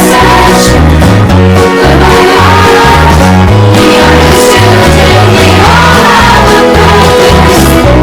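Upbeat song with guitar and a steady, repeating bass line, with singing over it.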